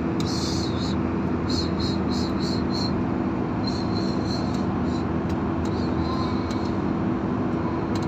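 Steady cabin noise of an Airbus A320-family jet airliner in cruise: an even rush of engine and airflow noise with a steady low hum.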